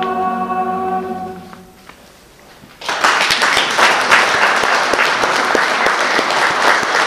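Mixed choir holding its final chord, which fades away within the first two seconds; after a brief hush, audience applause breaks out about three seconds in and carries on steadily.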